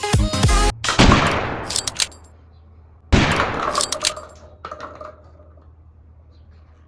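Two gunshot-like bangs about two seconds apart, each fading out over about a second and followed by a few short metallic clicks, after electronic music cuts off.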